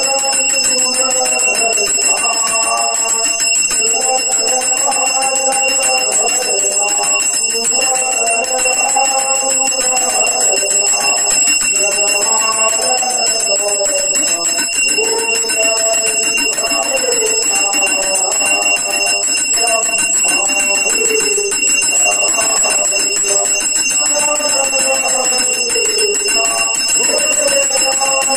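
Men singing a Hindu aarti hymn into a microphone, over a bell that rings without a break.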